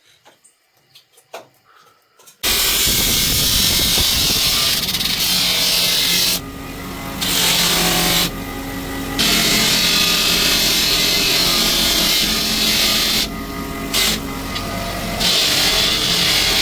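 Electric grinder working steel: a few light clicks, then about two seconds in the grinder starts loud and hissing against the metal. The grinding noise drops away briefly several times as the tool is lifted, while the motor keeps running.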